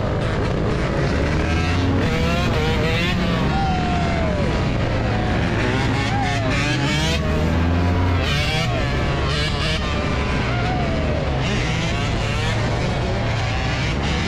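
Several motorcycle engines running and revving together, their pitch rising and falling again and again as the throttles are blipped.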